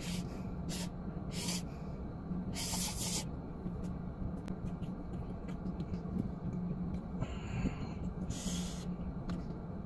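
A person slurping noodles and drawing sharp breaths: a string of short, hissy slurps, a longer one about three seconds in, then a pause before two more near the end, over a steady low hum.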